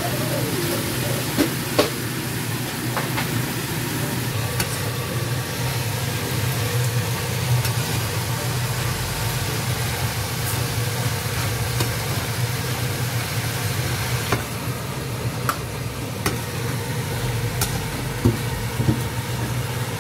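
Pork pieces sizzling as they fry in a nonstick pan, under a steady low hum. A slotted spatula stirring them knocks and scrapes against the pan every few seconds.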